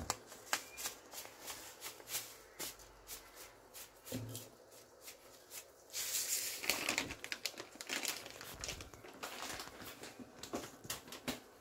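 Plastic seasoning packet crinkling as it is handled and shaken over the pot. Scattered clicks and rustles run throughout, with the loudest crinkling about six seconds in and again around eight to ten seconds in.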